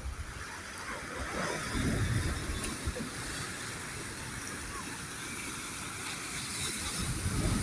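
Sea waves washing on the shore, a steady rushing that swells about two seconds in and again near the end.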